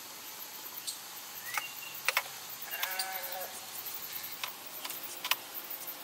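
Hands handling a glued-up wooden box on a workbench: a few sharp taps and clicks, the loudest a quick pair about two seconds in and another near the end. A short wavering pitched call sounds briefly about halfway through.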